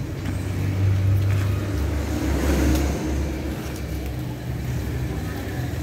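A steady low rumble, loudest about one to three seconds in.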